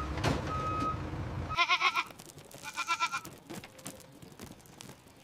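A vehicle's reversing beeper sounds over engine rumble and cuts off abruptly about one and a half seconds in. A goat then bleats twice, briefly.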